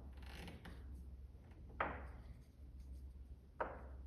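Cut-out pine duck shapes set down on a hard surface: two light knocks about two seconds apart, over a low steady hum.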